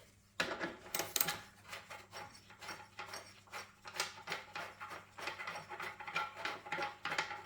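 A hand tool working a bolt out of the Briggs and Stratton engine's bracket: a quick, irregular run of light metal clicks and clinks.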